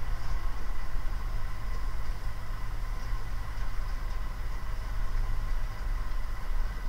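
Kubota MZ755 tractor's diesel engine running steadily under way, heard from inside the cab, a low rumble with a thin steady whine above it.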